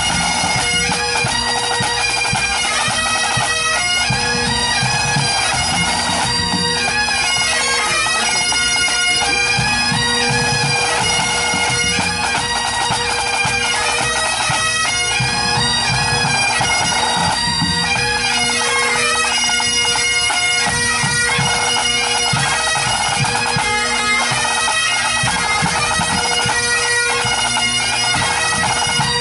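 Pipe band playing: Great Highland bagpipes carry a tune over their steady drones, with snare, tenor and bass drums keeping time.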